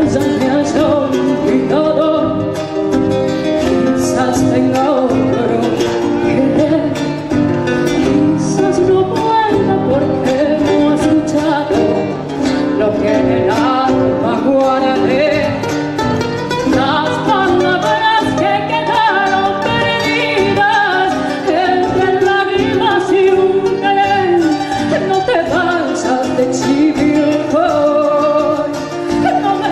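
Argentine folk music with plucked acoustic guitars and a gliding melody line above them, at a steady level.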